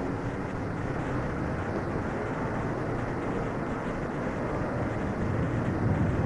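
Steady low rumbling noise with no distinct events, a little louder near the end.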